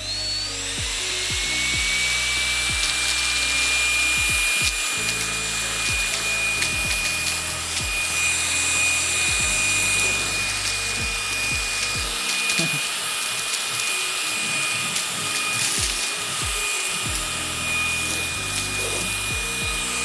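LG CordZero A9 cordless stick vacuum running on its bare wand with no floor head, set to turbo mode. A high motor whine rises as it spins up, holds steady, and drops as the motor shuts off at the end, with pieces of cereal clicking and rattling up the wand.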